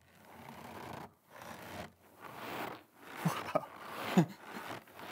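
A bag of cornstarch squeezed in an even rhythm, about six crunches roughly a second apart: the Foley trick for footsteps crunching through snow.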